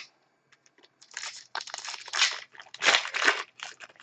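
Crinkling of a trading card pack wrapper being torn open and handled, in a run of short crackly bursts from about a second in, loudest near the middle and around three seconds.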